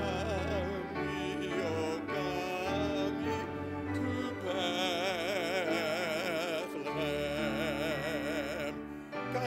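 A singer in a trained, operatic style holds long notes with a wide vibrato over a sustained instrumental accompaniment: sacred vocal music sung in the service.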